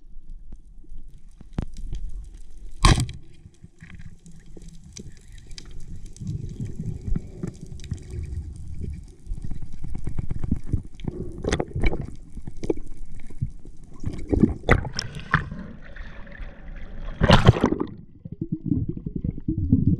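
Underwater sound picked up by a camera in its waterproof housing: an uneven low rumble of water moving against it, with scattered sharp clicks and knocks, the loudest about three seconds in and again near the end.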